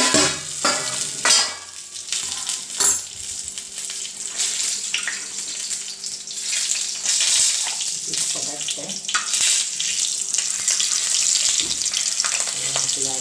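Stuffed green chillies sizzling in oil on a hot iron tava over a low gas flame, with a few metal clanks of the lid and a spoon on the pan in the first three seconds.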